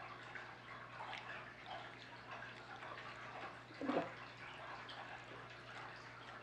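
Tap water running into a 180-gallon aquarium as it fills: an irregular trickling and splashing over a steady low hum, with one brief louder sound about four seconds in.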